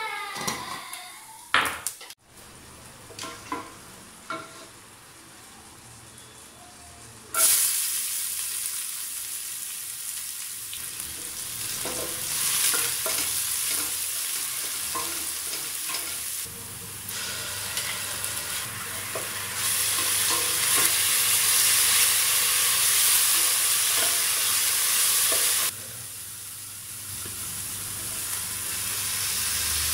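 Fennel seeds and whole spices in hot oil in a steel pot give a few faint pops. About seven seconds in, a sudden loud sizzle starts as chopped onions go into the oil, and it runs on steadily while a wooden spatula stirs them. The sizzle drops briefly near the end, then builds again.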